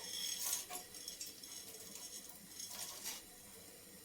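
Soft, faint pattering and rustling as neem stems, crushed ginger and dry spices are tipped into a pan of water, in two brief spells: one about half a second in and another about three seconds in.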